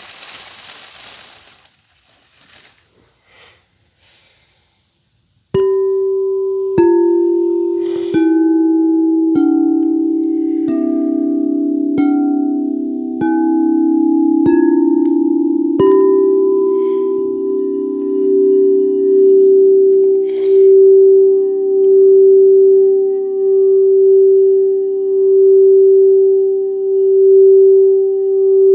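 A rain-like rushing fades out in the first two seconds. Then singing bowls are struck one after another, about one strike every second and a quarter, each a different note, the notes mostly stepping lower. They are left ringing together, the overlapping tones swelling and fading in a slow wobble.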